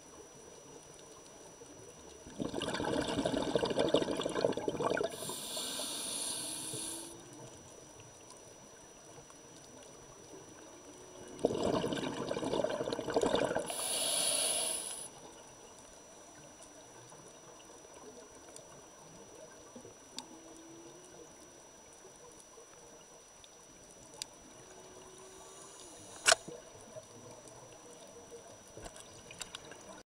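Scuba breathing through a regulator, twice about nine seconds apart: each time a crackly burst of exhaled bubbles followed by the hiss of an inhale. Between the breaths, faint short whale-song notes, and a sharp click near the end.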